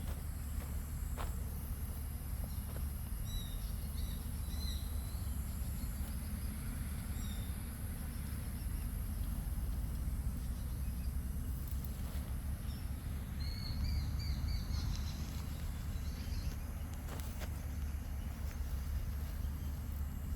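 Small birds chirping in short high series, once a few seconds in and again in a brighter burst about two-thirds of the way through, over a steady low outdoor rumble.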